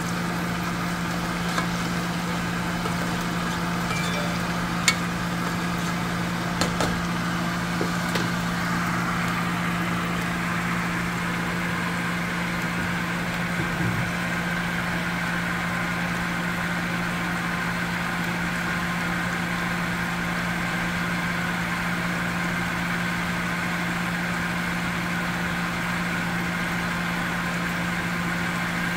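Kitchen exhaust fan running with a steady hum, over onions sizzling in butter in a pot. A few light knocks of a spoon against the pot in the first several seconds, the sharpest about five seconds in.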